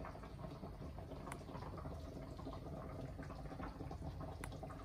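Faint, steady bubbling and crackling of hot food simmering, with two light clicks, one about a second in and one near the end.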